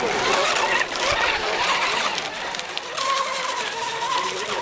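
Electric radio-controlled racing hydroplanes running at speed on the water: a high motor-and-propeller whine over the hiss of spray. About three seconds in, a steady high whine settles in.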